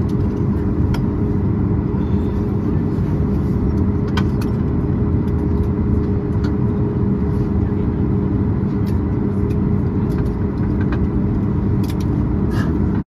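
Steady low rumble inside the cabin of a Boeing 737 MAX 8 taxiing slowly after landing, its engines at idle, with a few faint clicks; the sound cuts off suddenly near the end.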